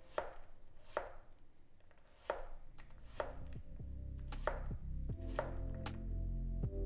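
A 230 mm carbon-steel gyuto chef's knife chopping down through a firm vegetable onto a wooden cutting board, dicing it in about seven crisp strokes, roughly one a second.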